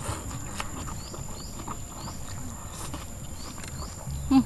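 Close-up eating sounds: a slurp of rice noodles at the start, then wet chewing with small clicks of the mouth. Short rising chirps repeat about twice a second in the background, and the eater gives a brief rising 'mm' near the end.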